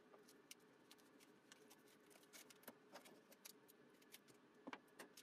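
Near silence, with faint light clicks and taps of small parts being handled on a workbench; a couple of slightly louder clicks come near the end.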